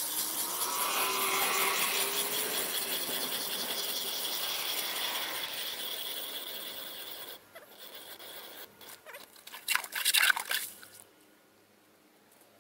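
Hand-cranked ice auger boring through thick pond ice, with a steady grinding rasp of the blades cutting. From about seven seconds in it turns to uneven scraping crunches, loudest around ten seconds, then stops near the end.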